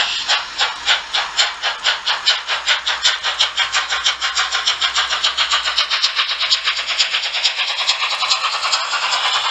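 Märklin model steam locomotive pulling away with its coaches, giving an even, quickening beat of steam chuffs at about four to seven a second. The beats fade near the end as a rising hiss takes over.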